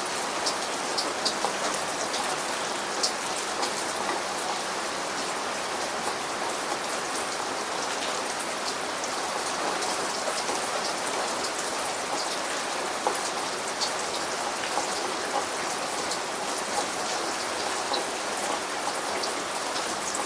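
Steady rain falling, an even hiss with scattered sharp drips and drop impacts on a surface.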